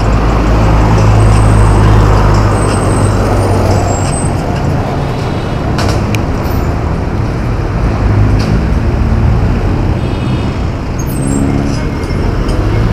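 Road traffic noise, with a heavy vehicle's engine running close by: a steady low hum that eases off after about four seconds.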